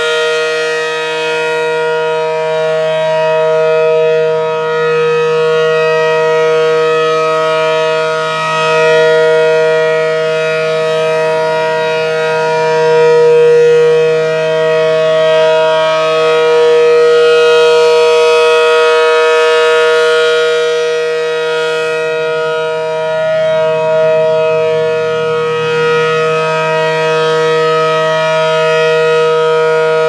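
ACA Allertor 125 rotating outdoor warning siren at full speed, sounding a steady two-tone chord whose loudness swells and fades every few seconds as the horn turns. It runs a little slow, which the owner calls a tad sluggish.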